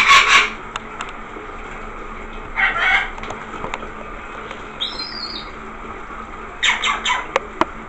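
Rainbow lorikeet bathing, flapping its wings and splashing in a shallow tub of water in three bursts, at the start, about three seconds in and near the end, over the steady hiss of running shower water. A short high chirp comes about five seconds in.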